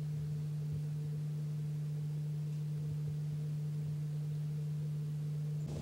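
A steady, unchanging low hum with faint overtones that cuts off abruptly near the end.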